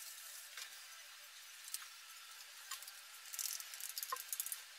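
Faint handling noises: a few light clicks, then a short crackly rustle starting about three seconds in.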